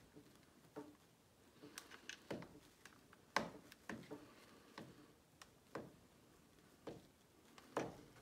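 Faint, irregular ticks and crinkles of Dacron fabric being pulled and pressed under a household iron, about a dozen in all, the sharpest a little past three seconds in.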